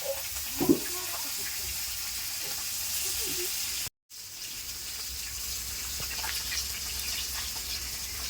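Pieces of magur catfish frying in hot oil, a steady sizzling hiss, broken by a brief gap about four seconds in.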